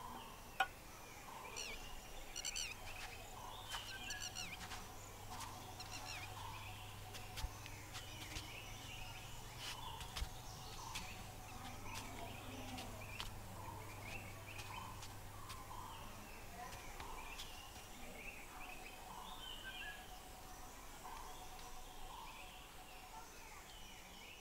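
Faint ambience of birds calling, with many short calls repeating throughout over a low steady hum that stops about two-thirds of the way in.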